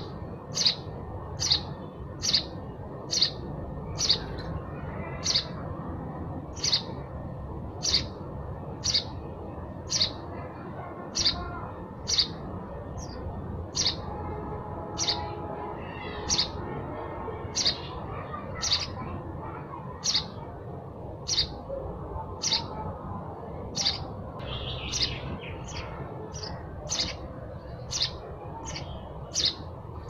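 House sparrow chirping: a steady series of short, high chirps, about one and a half a second.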